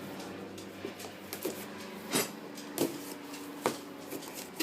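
A few short rustles and clicks from handling the packaging of a boxed wrench set, spaced about half a second to a second apart, over a steady low hum.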